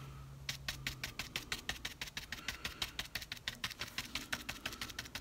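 A paintbrush rapidly dabbing thick acrylic paint onto a model base: a quick, even run of light taps, about eight a second, starting about half a second in.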